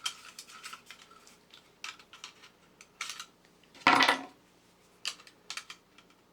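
Light metallic clicks and scrapes of a vintage toy robot's thin sheet-metal tabs and parts being handled and worked, with one louder clatter about four seconds in.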